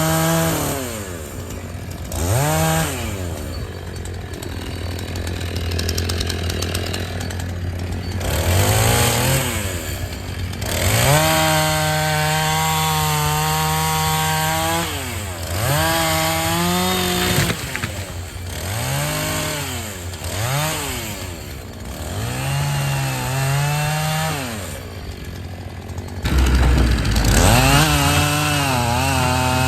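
Chainsaw revved up and down over and over, with a longer stretch held at high revs near the middle and again near the end. A steady low engine drone runs underneath.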